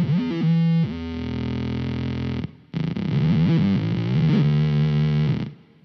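Electric guitar played through the RPS Effects Arcade Machine pitch-shifting pedal with its gate turned up high: two effected phrases, each chopped off abruptly as the gate slams shut.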